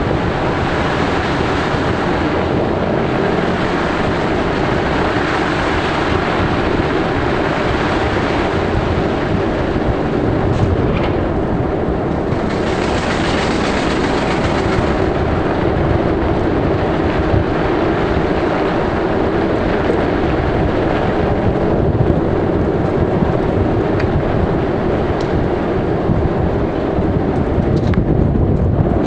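Steady engine and road noise heard from inside a moving car, with a louder rush of hiss for a couple of seconds about halfway through.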